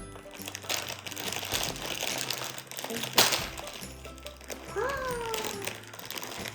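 Blind-box packaging crinkling as it is worked and torn open by hand, with one sharp rip about three seconds in. Background music plays throughout.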